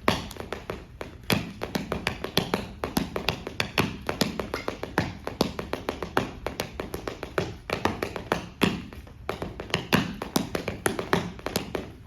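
Rapid, uneven taps and occasional heavier thuds from a percussive dance routine.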